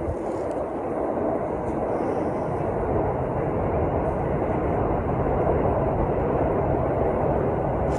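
Freight train hauled by an EF65 electric locomotive rolling over a level crossing. The rumble of wheels on rail builds over the first few seconds, then holds steady.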